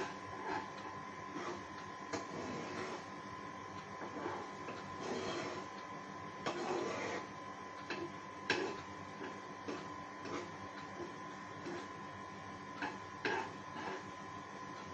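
A spoon stirs and scrapes a thick coconut and milk-powder mixture around a pan, making irregular scrapes and knocks against the metal. The mixture is being cooked down until it holds its shape and leaves the pan. A steady high hum runs underneath.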